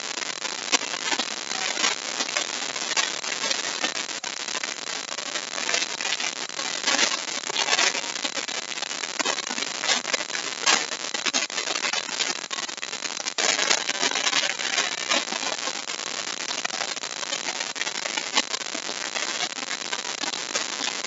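Handheld electric router cutting a deep mortise in wood: a steady, dense, crackling cutting noise as the bit chews through the wood, louder for a moment a little past halfway.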